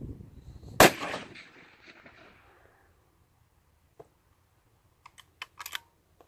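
A single shot from a scoped bolt-action .308 rifle about a second in, its echo dying away over the next couple of seconds. From about four seconds in come a few sharp metallic clicks as the bolt is worked.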